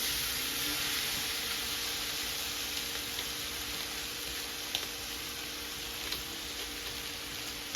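Brown rice sizzling in hot oil with fried onion, carrots, garlic and pepper, the sizzle swelling as the rice goes in and then holding steady. A couple of faint clicks.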